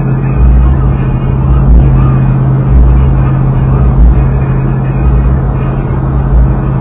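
V8 engine running at a steady speed: a constant low drone with irregular deeper throbs under it.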